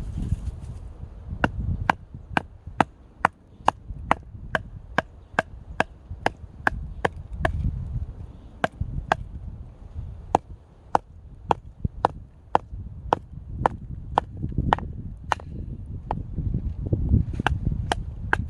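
Firewood being split with a knife: a steady run of sharp wooden knocks, a little over two a second, with a short pause about halfway and a longer one near the end before a few more strikes.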